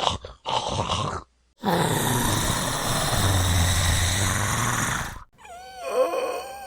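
Zombie vocal sound effect: a few short choppy growls, a brief silence, then a long, breathy, rasping growl lasting about three and a half seconds. Near the end comes a wavering, pitched moan.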